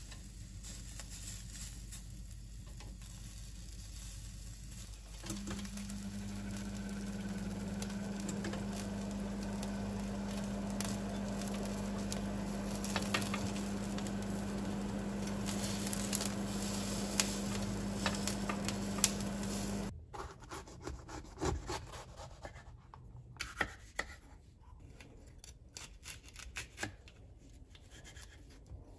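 Chicken sizzling on a wire grill over a gas burner; about five seconds in, the cooker-hood extractor fan switches on and runs with a steady hum. About twenty seconds in the sound cuts to a kitchen knife slicing bell peppers on a wooden cutting board, in light scattered taps.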